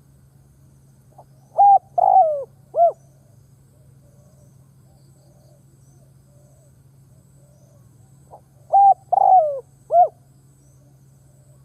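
Spotted dove cooing: two phrases about seven seconds apart, each a short pick-up note and then three coos, the middle one longest and falling in pitch. A faint steady low hum runs beneath.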